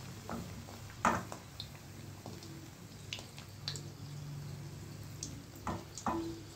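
A stuffed puri deep-frying in hot oil in an iron kadai: a low bubbling with scattered crackles and pops, and a few louder clicks about a second in and near the end.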